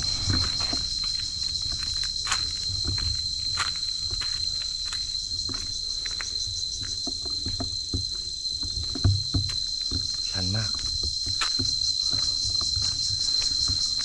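A steady, high-pitched insect drone from the forest, with a fast pulsing buzz above it. Over it, footsteps and the crunch and rustle of dry leaves on the trail.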